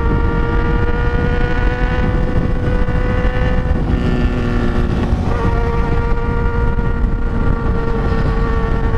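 Motorcycle engine running at steady high revs at highway speed, with heavy wind rumble on the microphone. Around four seconds in the engine tone briefly shifts and breaks up, then settles back to the same steady note.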